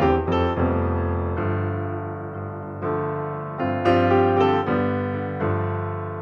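Background piano music: notes and chords struck about once a second, each left to ring and fade.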